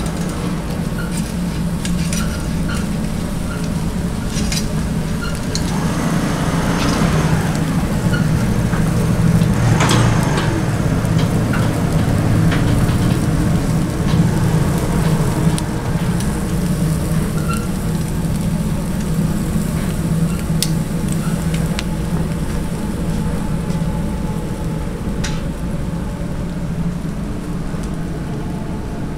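Fish sizzling as it grills over coal briquettes, with small crackles and clicks, over a steady low hum.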